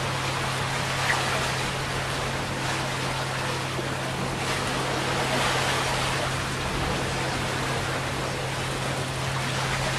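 Steady rush of wind and sea around an Outbound 44 sailboat under way in choppy water, with a constant low hum underneath.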